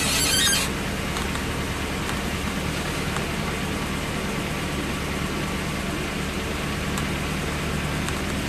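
Small motorboat's engine running steadily under way, with wind and the rush of water from the wake. A brief high squeak right at the start.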